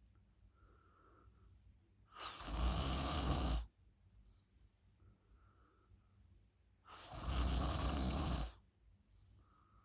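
A person snoring loudly: two long snores about four and a half seconds apart, each lasting about a second and a half, with a faint short whistle in the quiet between them.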